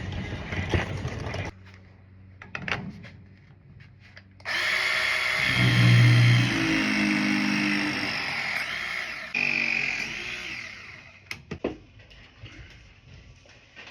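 A handheld power tool runs loudly for about five seconds from about four seconds in, stops, then runs again briefly and winds down. Light clicks and knocks of work come before and after.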